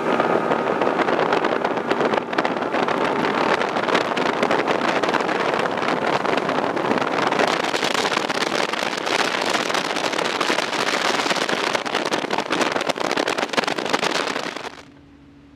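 Bass boat running across the lake at speed: wind buffeting the microphone over the noise of the motor and the hull on the water, as one loud steady rush. It cuts off suddenly near the end.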